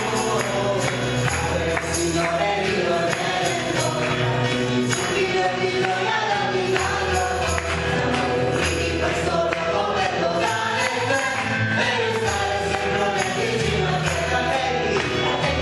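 A mixed choir sings a worship song with keyboard accompaniment. A steady percussive beat runs underneath, and deep bass notes are each held for a few seconds before changing.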